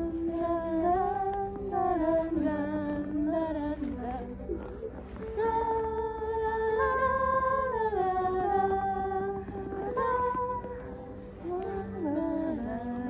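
Wordless humming of a melody in held notes that step up and down, with music and a steady low note behind it.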